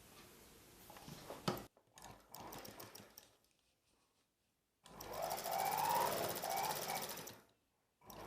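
Sewing machine stitching in one run of about two and a half seconds starting about five seconds in, a rapid needle clatter with a wavering motor whine. Before it, faint handling of cloth with a sharp click.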